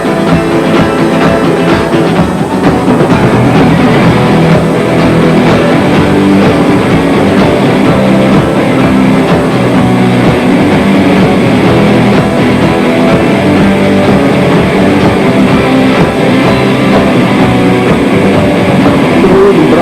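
Instrumental rock music, a passage with no singing.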